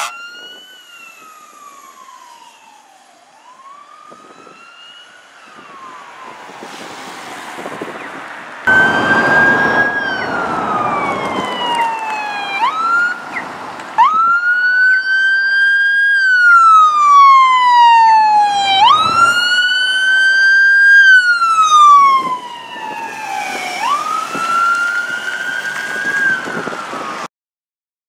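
Electronic emergency-vehicle sirens in wail mode, each slow sweep climbing and then falling over about four to five seconds. The first stretch is fainter and fading. After a couple of abrupt jumps it is louder and closer, from an approaching ambulance, over traffic noise, and it cuts off suddenly near the end.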